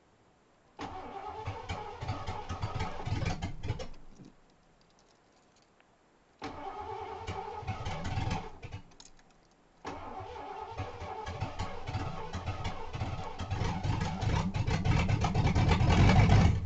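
Ford Crown Victoria V8 cranked on the starter in three attempts, the first two dying out after a few seconds. On the third and longest attempt it sputters and builds, getting steadily louder as it begins to catch. This is a hard first start after a top-end rebuild, with the ignition timing not yet set.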